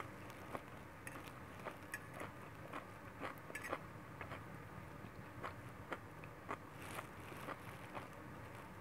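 A person chewing a mouthful of pancit guisado (stir-fried noodles and vegetables) with the mouth closed: faint, irregular small wet clicks, a couple each second.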